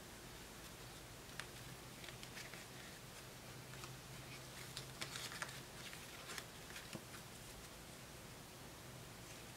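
Playing cards clicking and snapping softly as a deck is cut, split into packets and put back together in the Olivine cardistry flourish. The light clicks come in scattered runs and are thickest about five seconds in, over a faint steady hum.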